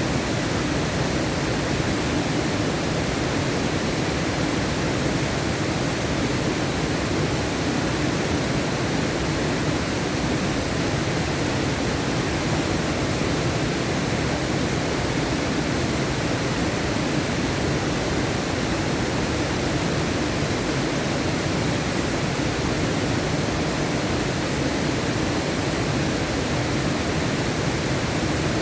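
Alibek waterfall, a mountain waterfall, falling water making a steady rushing noise that does not change.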